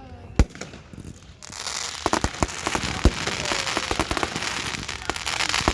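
Aerial fireworks going off: one sharp bang about half a second in, then from about a second and a half a dense crackling like heavy rain, broken by many loud bangs.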